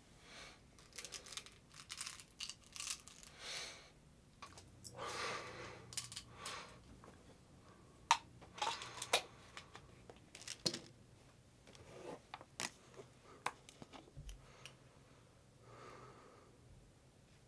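Rustling and crinkling of a plastic water bottle and a pill bottle being handled, with a few sharp clicks from caps and plastic.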